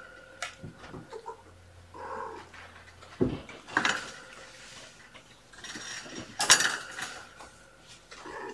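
Young kittens mewing as they play, with a few scattered thumps and clatters; the loudest is a sharp clatter about six and a half seconds in.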